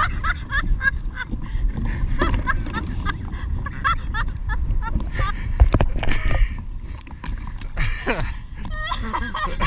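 A person laughing uncontrollably in short, high-pitched, honking bursts, over wind buffeting the microphone, with sharp splashes about five and a half seconds in and again near eight seconds.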